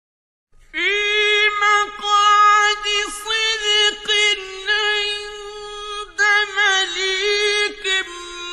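A man's high voice reciting the Quran in the melodic mujawwad style. It starts about half a second in after silence and holds long notes with quick ornamented turns.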